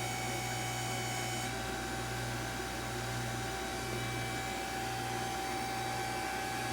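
Hydraulic power unit of an automated seat belt tester running steadily, a motor-driven pump hum with a constant whine, as the machine builds the belt load back up to 760 newtons.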